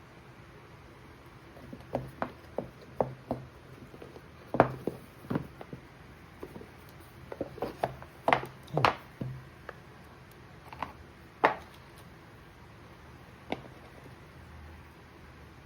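A camera box and its packaging being opened and handled: an irregular run of sharp clicks and taps, loudest in the middle and stopping a couple of seconds before the end.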